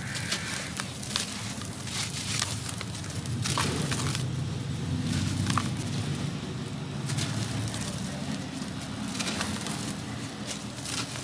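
Dry sand-cement chunks crumbled and crushed by hand in a basin: gritty crunching and crackling, with powder and grit pouring down and a few sharper cracks here and there.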